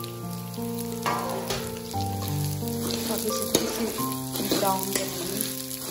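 Vermicelli (semiya) sizzling as it fries in hot ghee in a metal kadhai, with a metal spatula scraping and stirring it round the pan. It is the first roasting of the vermicelli in ghee, done until it turns brown, as for halwa.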